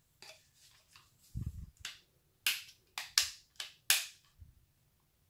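Sharp plastic clicks and knocks as a Parkside cordless impact wrench is handled and its switches are worked: a low thump after about a second and a half, then about five sharp clicks in quick succession. The motor does not run.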